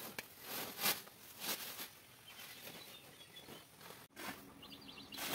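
Woven plastic feed sacks being shifted and dropped, short swishes and thumps of the sacking with rustling between. Near the end a quick, high chirping starts.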